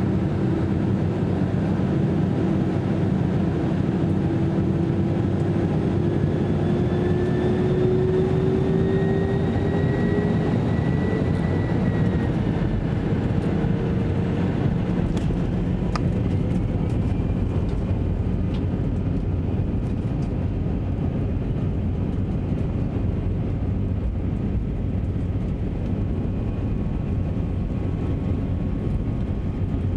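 Jet airliner engines heard from inside the cabin, spooling up for the takeoff roll: a whine rises in pitch over the first dozen seconds or so, then holds, over a steady heavy rumble and rush.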